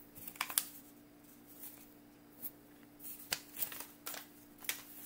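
Computer clicking: irregular sharp clicks, about a dozen in small clusters, over a faint steady hum.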